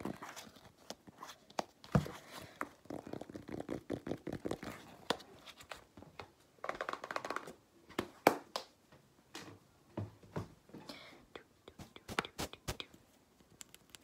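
Fingertips and nails tapping and scratching quickly on a notebook cover: irregular runs of sharp taps mixed with scratchy rustling, in short stop-start bursts.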